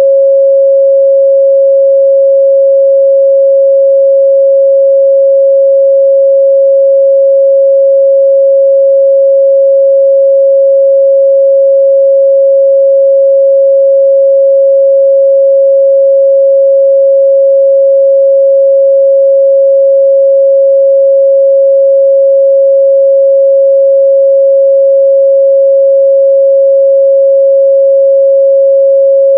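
A continuous 547 Hz sine-wave test tone, a single steady pure pitch at constant loudness.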